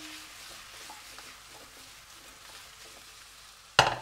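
Cubes of quince frying in oil in a pan, a quiet sizzle with faint crackles, broken near the end by a single sharp knock.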